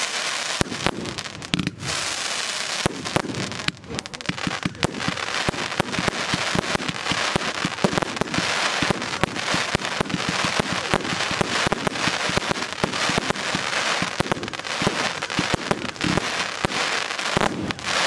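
China Red 'Bulldozer' consumer firework compound cake in its finale, firing shot after shot in rapid succession, the bursts filling the air with a dense crackle. The firing thins out and stops near the end.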